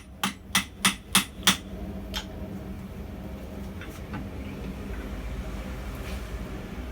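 Blacksmith's hammer striking a steel collar as it cools, trying to close it tight: about six quick ringing blows in the first second and a half. A steady low hum follows, with a few faint taps.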